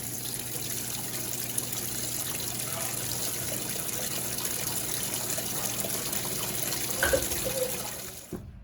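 Water running steadily into the washing machine's fabric softener dispenser to thin the softener. There is a brief knock about seven seconds in, and the flow cuts off just before the end.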